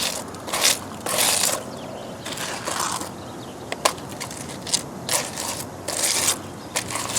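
Gritty scraping and crunching in short, repeated strokes as concrete mix and rocks are worked into a rock wall, with one sharp click a little under four seconds in.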